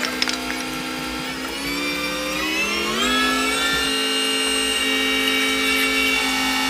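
Mobile crane's engine and hydraulics whining under load while hoisting a heavy boulder; the pitch steps up, glides higher about three seconds in, then holds steady.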